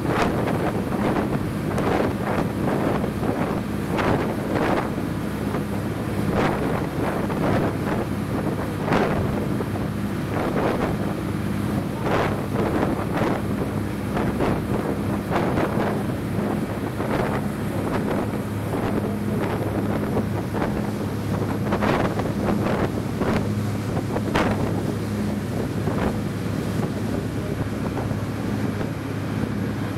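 Motor launch under way: its engine drones steadily, with water rushing in the wake and wind buffeting the microphone in irregular gusts.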